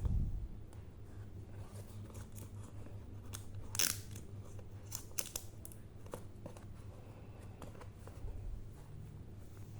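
Handling noises from unboxing a smartphone: scattered short clicks and snips of the box and packaging, the sharpest about four seconds in and a few more about a second later, over a low steady hum.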